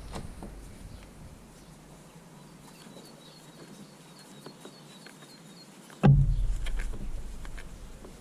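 A single heavy thump about six seconds in, low and dying away over a second or so, with faint clicks and a faint run of quick high chirps before it.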